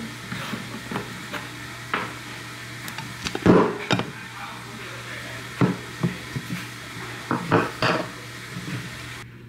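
Kitchen handling knocks and clinks: a moka pot being screwed together and set down on a glass-topped stove, the loudest knock about three and a half seconds in, then a ceramic canister being picked up and handled. A steady low hum runs underneath.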